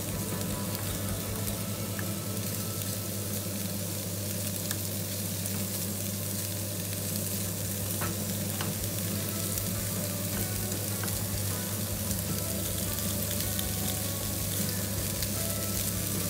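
Pork intestines with onion and garlic sizzling steadily in a pan with no added oil, frying in the fat they render, while being stirred gently. A few faint clicks break the sizzle, over a steady low hum.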